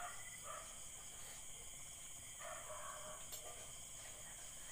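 Faint, steady night chorus of crickets and other insects, several high shrill tones held without a break.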